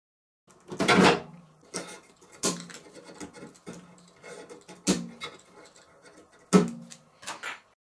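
Metal parts of a microwave oven being handled while it is taken apart: knocks and clanks, four of them louder, each leaving a short low ring, with lighter rattling in between.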